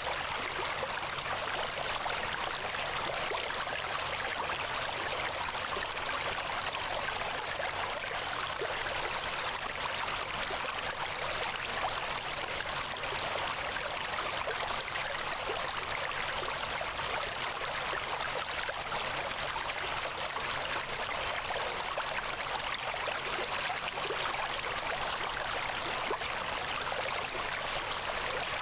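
Steady, unchanging hissing rush of noise, even in level, with no deep rumble beneath it: a masking ambience track of the kind laid over subliminal recordings.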